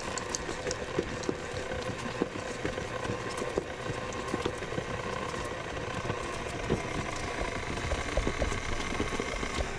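Hobart stand mixer's motor running steadily as it beats a thick chocolate chip cookie dough in its steel bowl, with frequent irregular clicks and knocks over the hum.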